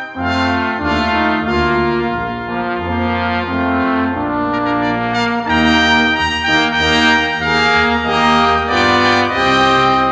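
Brass quintet of trumpets, horn, trombone and tuba playing a Christmas carol arrangement, the melody moving above sustained low bass notes.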